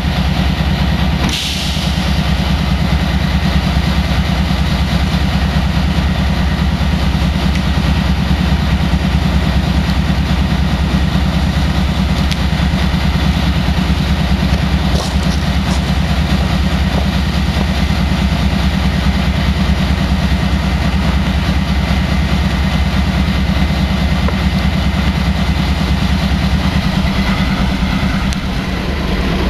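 Diesel-electric freight locomotive engines running steadily at idle close by, a deep even rumble, with a sharp knock about a second in.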